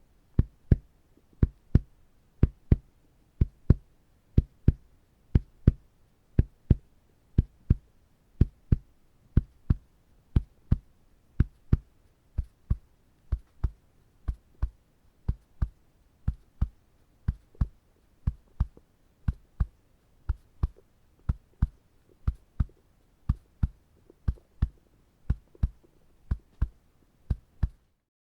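Heartbeat-like double thumps made by punching on the chest, one pair about every second. Louder at first, then quieter from about halfway through.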